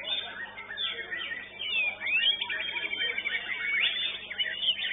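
White-rumped shama (murai batu) singing a fast, varied run of whistles and sharp rising and falling sweeps, over a low steady hum.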